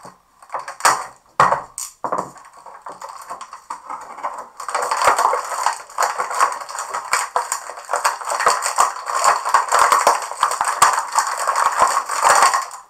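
Clear plastic packaging bag crinkling and crackling in the hands as action figures are unwrapped from it, light rustles at first, then very noisy continuous crackling from about four seconds in until just before the end.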